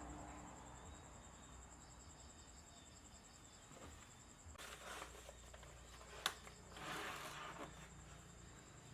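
Faint steady high-pitched trill of crickets, with a few soft rustles and one sharp click about six seconds in.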